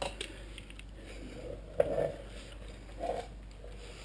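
A few light metallic clicks and clunks of a Yamaha TW200's rear-axle snail chain adjuster being worked by hand: one at the start, a louder one about two seconds in and another about three seconds in.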